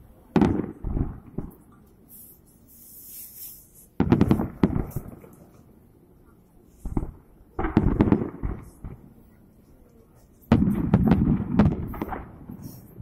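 Aerial fireworks bursting in four volleys, each a second or two of sharp bangs and crackle, with quieter gaps between them.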